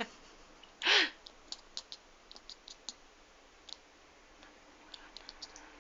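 Kitten giving one short chirp about a second in, followed by a run of faint, irregular clicks: the squirrel-like chattering noises of a frustrated kitten.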